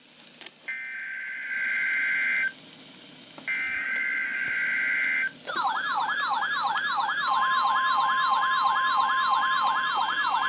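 Emergency Alert System activation: two harsh, buzzing bursts of digital header data, then, about five and a half seconds in, a warbling siren-like alert tone that sweeps up and down about four times a second. About two seconds later a steady single-pitch alert tone joins it.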